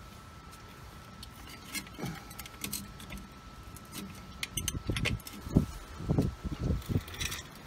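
Metal tools clinking and rattling as a band-type filter wrench and a half-inch drive handle are fitted around an air dryer cartridge. There are scattered light clicks, then from about halfway a quicker run of dull knocks.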